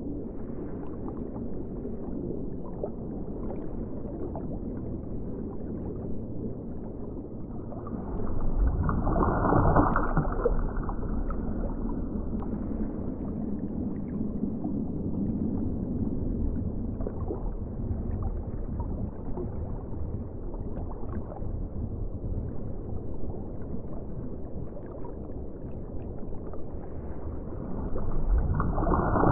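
Underwater ocean ambience: a steady, muffled rush of moving seawater, swelling louder twice, about nine seconds in and again near the end, with a faint crackle of bubbles in each swell.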